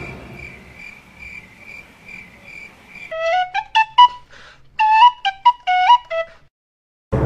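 Cricket chirping, a faint steady chirp a little over twice a second. About three seconds in it gives way to a short, loud whistled tune of quick notes sliding up and down between pitches, which stops abruptly about a second before the end.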